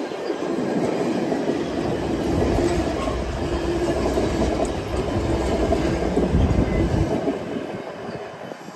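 Passenger cars of a passing train rolling by close at hand, their wheels rumbling and clicking along the rails. The low rumble drops away about seven seconds in as the last car passes and the train moves off.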